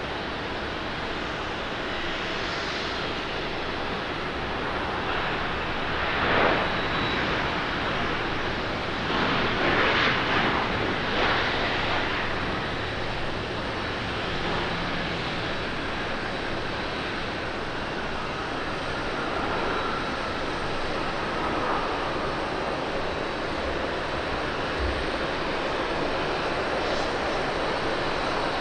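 Boeing 737-800 jet engines during a landing and runway rollout, a steady jet roar. It swells in louder surges from about six to twelve seconds in as the airliner slows down the runway, then settles back.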